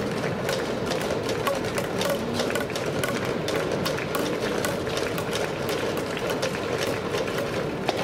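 Ballpark crowd noise from the stands: a steady murmur with scattered clapping, and one sharper crack near the end.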